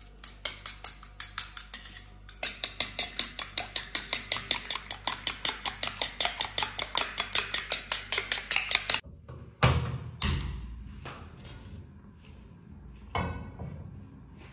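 Steel spoon rapidly beating eggs in a stainless steel bowl: quick, even clinking of about five strokes a second that stops about nine seconds in. A few loud metal clanks follow as a frying pan is set on a gas stove's grate.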